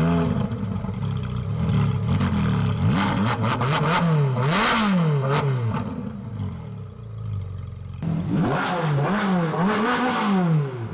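Ferrari 458 Speciale Aperta's naturally aspirated V8 revved hard at standstill: repeated throttle blips, the pitch rising and falling each time. It eases off for a moment past the middle, then comes a further run of quick blips near the end.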